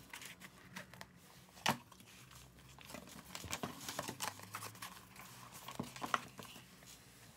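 Faint rustling and scraping of a paper planner and its cover being handled as the book's covers are slid into the cover's sleeves, with scattered light taps and one sharper click about a second and a half in.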